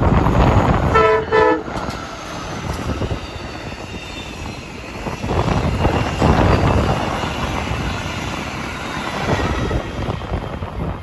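Nathan K5LA five-chime horn on an Amtrak passenger train sounding two short blasts about a second in. It is followed by the steady rumble and wheel noise of the train passing, which swells about halfway through.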